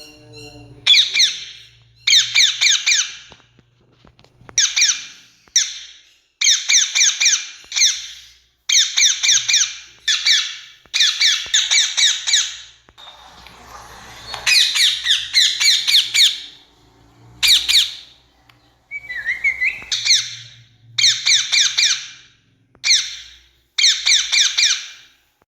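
Rose-ringed parakeet (Indian ringneck) calling: loud, shrill squawks in quick bursts of several rapid notes, one burst about every second, with a longer run of calls about halfway through.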